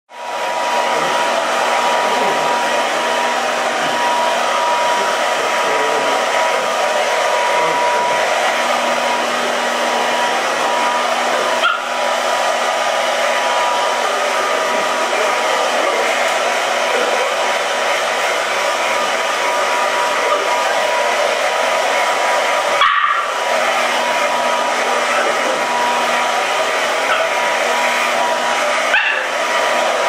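Handheld hair dryer blowing steadily, a constant rushing air noise with a steady whine, dipping briefly a few times. A West Highland White Terrier puppy barks at it now and then.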